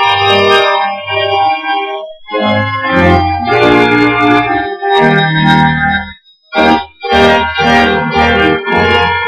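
Church organ playing sustained chords over a low bass line, breaking off briefly about two seconds in and again about six seconds in.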